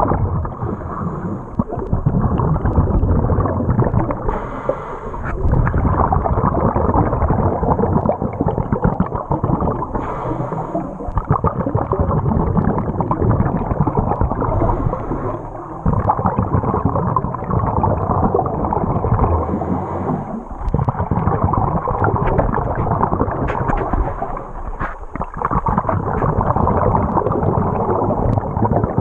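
Water rushing and gurgling heard from underwater, a muffled, dull rumble that surges and eases every few seconds as the swimmer moves through the river.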